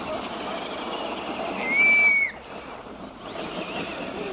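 Radio-controlled Tamiya TXT-1 monster truck driving up a dirt hill, a steady noisy running sound, with one short, high, whistle-like tone lasting about half a second around two seconds in.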